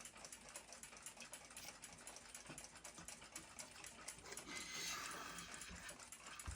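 Faint, fast, regular ticking, with a short hiss about four and a half seconds in.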